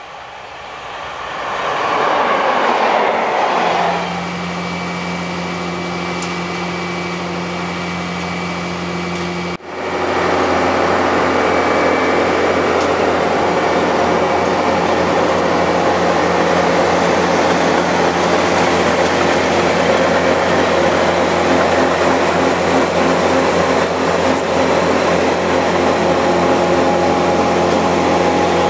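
A diesel-hauled rail milling train approaches, its noise swelling over the first few seconds; then a steady drone of its machinery with a few fixed humming tones. From about ten seconds in, the milling unit running along the rail head makes a loud, steady mechanical whirr of metal working on rail steel.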